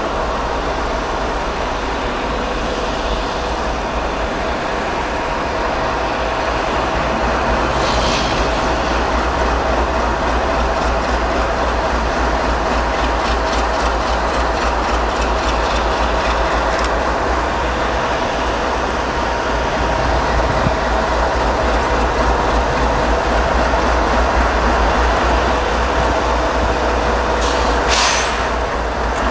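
GE ET44AC diesel-electric locomotive leading a freight train toward the listener at low speed. It makes a steady engine drone with a few held tones, slowly growing louder as it draws near, with a short sharp high noise near the end.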